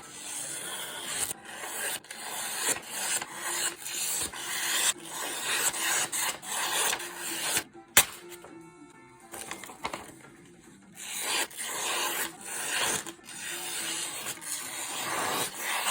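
Balisong blade slicing through paper in repeated pull cuts, a run of dry papery rasps. One sharp click about halfway through, followed by a few quieter seconds before the cutting picks up again.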